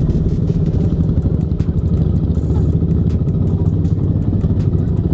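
Suzuki Raider motorcycle's single-cylinder engine running at low speed while ridden, with light rattling from the machine over rough, broken concrete.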